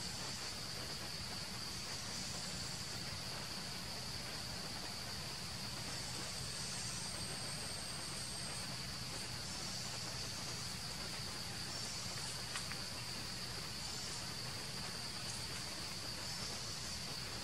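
Forest insects droning steadily at one high pitch over a soft background hiss, with a second, higher note joining for a few seconds partway through.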